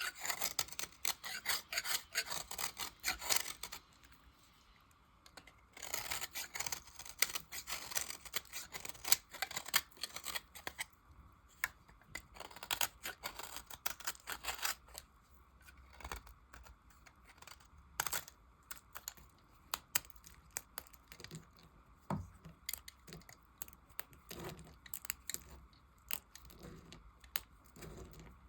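Knife cutting through soap scraps, with crisp crackling, scraping strokes. It comes in dense runs for the first ten seconds or so, then thins to separate cuts and clicks.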